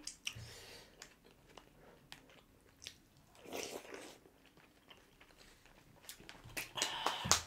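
Close-miked eating: chewing and spoonfuls of birria consomé broth being sipped, with scattered small clicks. There is a soft noisy sip about three and a half seconds in and a louder one near the end.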